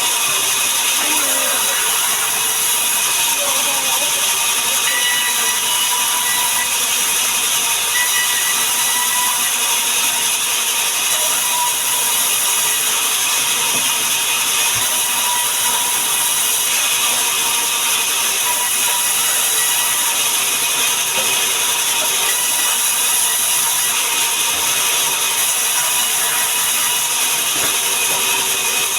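Sawmill machinery running steadily: a loud, even mechanical noise with a strong high hiss and steady tones, with no separate knocks or changes.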